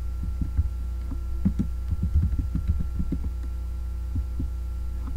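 Computer keyboard being typed on, the keystrokes picked up as irregular dull low taps over a steady electrical hum.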